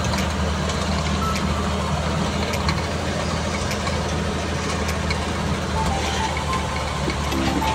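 A truck's engine running steadily with a low, even drone.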